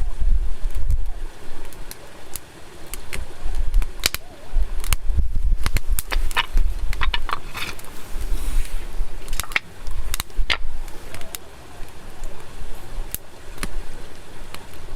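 Wood fire crackling, with sharp irregular pops and snaps, the loudest from about four to eleven seconds in, over a low rumble of wind on the microphone.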